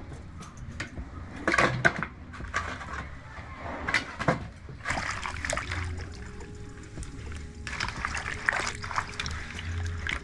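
Water splashing and sloshing in a pot, with a few sharp knocks mixed in.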